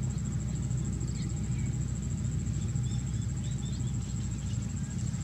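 Steady low rumble of wind on the microphone, with a few faint high chirps of birds in the middle.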